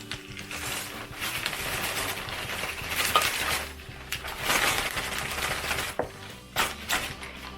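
Plastic rustling and light rattling from handling a cup noodle and a zip-top plastic bag, in several bursts with a few sharp clicks near the end.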